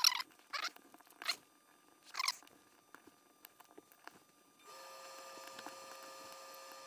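Hex key turning the small cover screws of a filament sensor: four short squeaky scrapes in the first couple of seconds, then a few faint clicks. About two-thirds of the way in, a furnace starts up with a steady hum.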